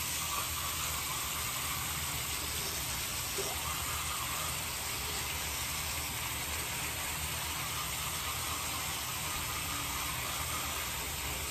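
Water running steadily from a bathroom sink tap, an even hiss.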